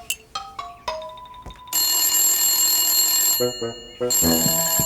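Telephone bell ringing: two long rings with a short pause between them, after a few short musical notes.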